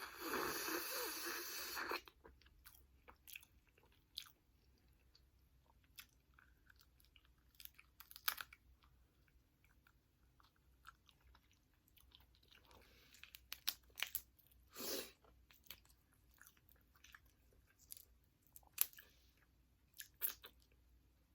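Close-miked eating: a person chewing and smacking on seafood-boil food, with scattered wet clicks and short bursts. It opens with a louder noisy rush of about two seconds.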